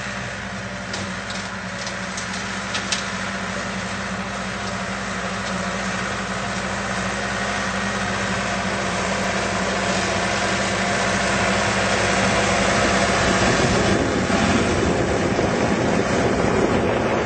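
Tractor engine running steadily, driving a PTO-powered EFGC flail mower that cuts grass. The sound grows gradually louder, with more rushing noise from the mower in the last few seconds.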